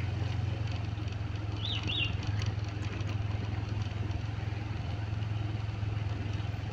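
Motorcycle engine running steadily at low speed along the lane, a constant low hum. Two short high chirps sound about two seconds in.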